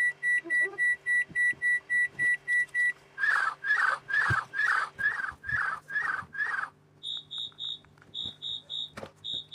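A string of electronic sound effects: a rapid run of short, even beeps for about three seconds, then eight short squeaky chirps, then higher-pitched beeps in groups of three, with a sharp click near the end.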